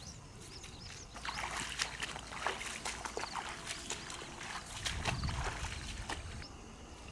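Footsteps wading through shallow water and wet marsh grass: irregular sloshing, splashing steps.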